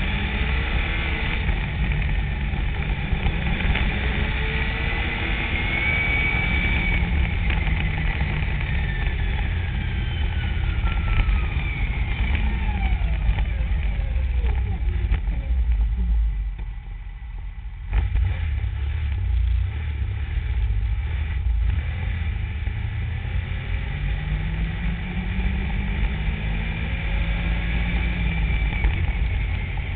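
Yamaha Nytro snowmobile's four-stroke three-cylinder engine running under way, revs rising and falling with the throttle. About sixteen seconds in it eases off for a couple of seconds, then picks back up sharply.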